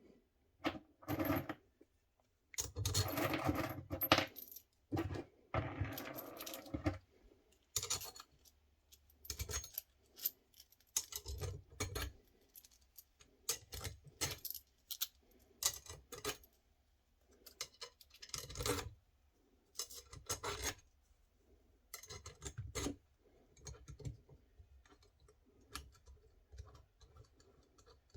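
Small metal parts of a punch tool clinking and clattering as its plates and screws are fitted: a run of short, irregular metallic clicks.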